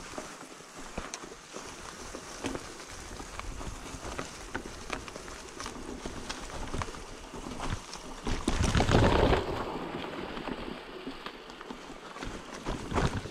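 Mountain bike rolling along a forest singletrack over dry fallen leaves: a steady rush of tyre noise with frequent small crackles and knocks. A louder rush of noise comes about nine seconds in.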